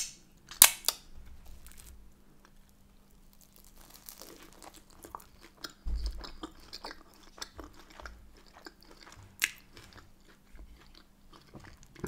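Close-up chewing and wet mouth sounds of someone eating sausage, mashed potato and Yorkshire pudding with gravy. There are two sharp lip smacks in the first second as fingers are licked clean, and another sharp smack about nine seconds later.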